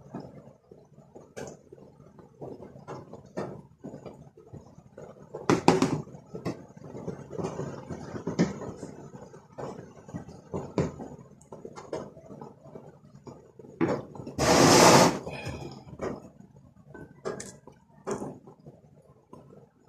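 Irregular knocks, clicks and clatter of hands and tools working on a washing machine's parts, with one loud rushing noise about a second long near the middle.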